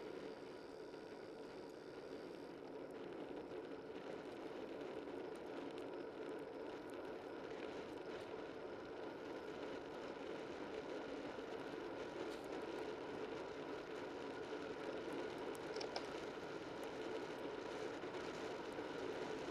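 Steady rush of wind and tyre noise from a bicycle on the move, picked up by a camera mounted low on the bike. It grows gradually louder after about two seconds.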